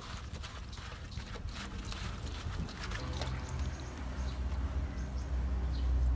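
Hands swishing and lifting cut elephant foot yam stalk pieces in water in a stainless steel bowl: sloshing and dripping splashes. A low hum builds underneath in the second half.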